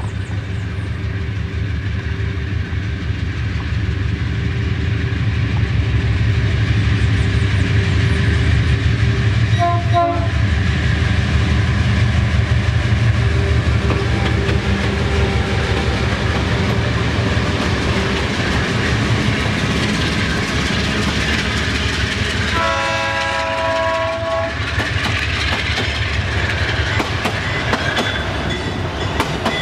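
Freight train passing: a steady heavy diesel locomotive rumble with wheels clattering on the rails, and a multi-tone horn blast of about two seconds some 23 seconds in.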